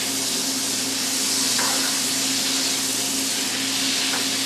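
Bacon frying in a pan: a steady sizzle of fat with a few faint pops, over a low steady hum.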